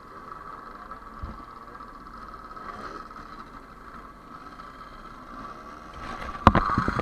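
Two-stroke motorcycle engine running steadily, growing louder about six seconds in with a few sharp knocks.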